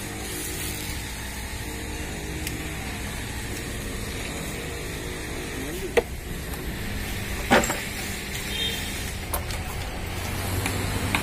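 An engine running steadily with a low hum. Two sharp clicks sound about six and seven and a half seconds in.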